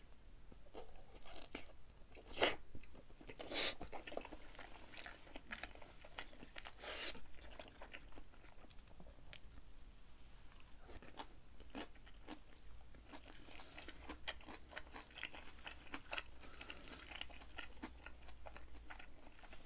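Close-miked eating sounds: biting and chewing a piece of fried fish cake, then kimchi, a steady run of small chewing clicks with a few sharper crunches in the first several seconds.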